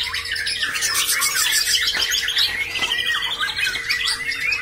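Caged songbirds singing, a young white-rumped shama among them: many quick repeated trills and chattering phrases overlapping, with no break.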